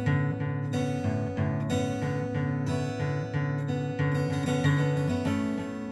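Acoustic guitar strummed in a steady rhythm between sung lines.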